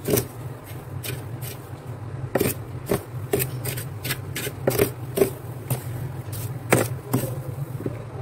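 Steel spoon scraping and digging into thick, built-up freezer frost in short, crisp, irregular strokes, about one or two a second, over a steady low hum.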